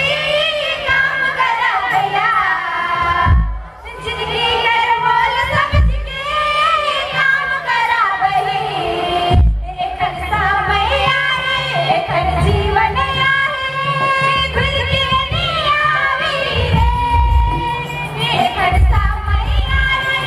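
A large group of young voices singing a song in chorus, over a low, steady drum beat that fits the two-headed barrel drum seen being carried in the group.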